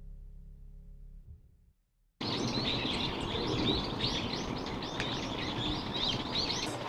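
Low music tones fade out, then after a short silence many small birds chirp rapidly over a steady outdoor hiss.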